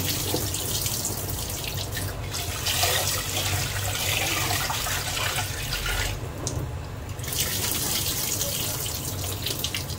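Tap water running and splashing into a stainless-steel bowl and steel sink as rice is rinsed by hand, with the cloudy rinse water poured off into the sink.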